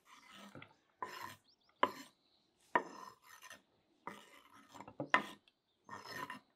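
Diced bell pepper scraped across a wooden cutting board and dropped onto a ceramic plate: a series of short rasping scrapes, about one a second, each with a sharp start.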